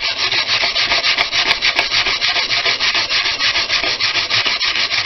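Hand-held wire brush scrubbed in rapid, even back-and-forth strokes over a rusty iron hinge, scraping off rust. The scrubbing stops abruptly near the end.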